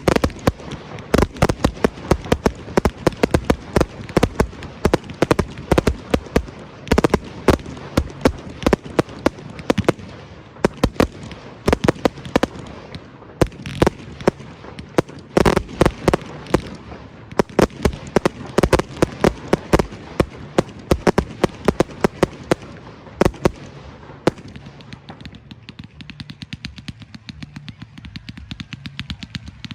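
Fireworks display: a dense, rapid barrage of aerial shell bursts and reports, many bangs a second. About three quarters of the way through it thins out to scattered, weaker pops.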